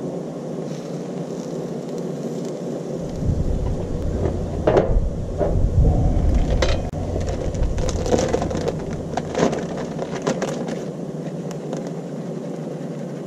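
A steady sizzle and hiss from an omelette cooking on a propane-fired Blackstone flat-top griddle. From about three seconds in there is a low rumble with several clicks and knocks, which die away by about ten seconds in.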